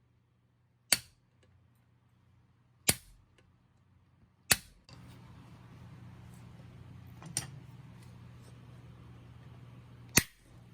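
Sharp single hammer blows on a metal workpiece, five in all and spaced a second or two apart, the fourth lighter than the rest. A steady low hum starts about five seconds in and continues under the later blows.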